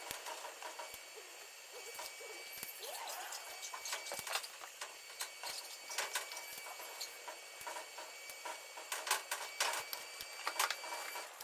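TIG welding stainless steel exhaust pipe: a steady hiss with a faint high whine, broken by irregular sharp clicks and crackles that grow busier near the end.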